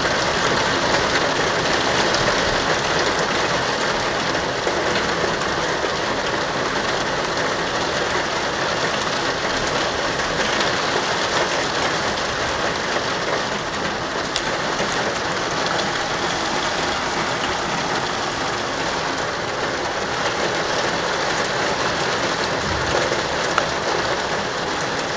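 Heavy rain pouring steadily during a thunderstorm, an even hiss of rain on surfaces with no distinct thunderclap.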